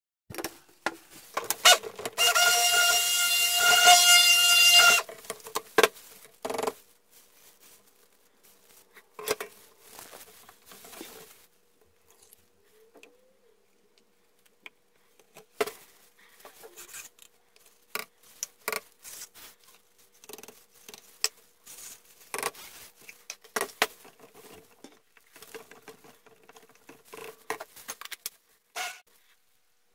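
A handheld stick blender runs steadily for about three seconds, mixing soap batter. After it come scattered clicks, knocks and scrapes of a spatula against plastic pitchers and a bowl.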